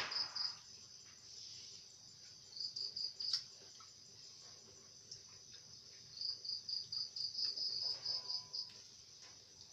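Crickets chirping: runs of quick, evenly spaced high chirps, about five a second, over a steady high insect trill. The chirp runs come near the start, about three seconds in, and again for a couple of seconds near the end.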